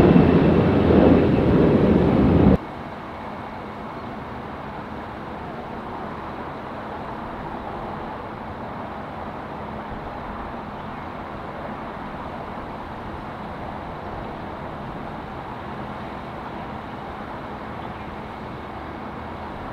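Loud jet aircraft engine rumble that cuts off abruptly about two and a half seconds in, leaving a steady, much quieter background hum.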